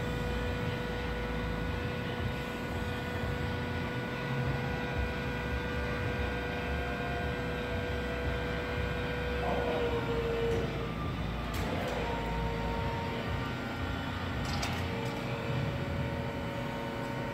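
Powered trailer tongue's motor running steadily with a whine while it moves the hitch arm. The pitch shifts about ten seconds in, and there are a couple of brief clicks.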